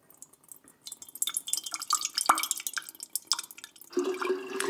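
Thick tomato sugo pouring through a stainless steel funnel into a glass jar: a quick, irregular run of drips, plops and wet clicks, one plop ringing briefly about two seconds in.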